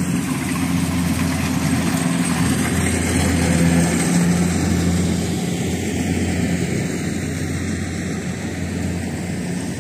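Kubota rice combine harvester's engine running steadily as it harvests, a constant low drone that swells slightly about four seconds in.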